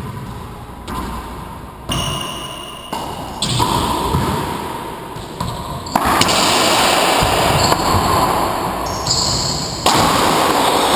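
Racquetball rally: a string of sharp hits as the ball is struck by racquets and cracks off the walls and floor, each ringing out in the enclosed court.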